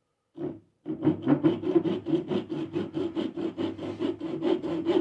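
Fine curved tenon saw cutting into a block of timber held in a vise: one short starting stroke, then quick, even back-and-forth strokes, about four or five a second, from about a second in.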